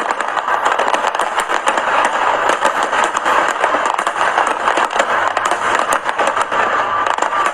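Fireworks crackling: a continuous dense fizz of many small pops.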